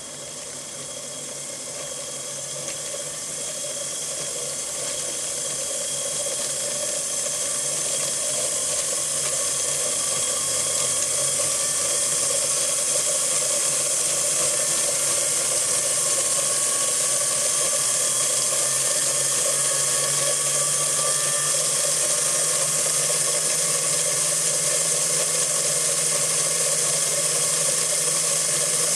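DC gear motors of a robot chassis running under a Sabertooth 2x5 motor controller, growing louder over the first dozen seconds as they speed up, then running steadily with a whirring gear noise.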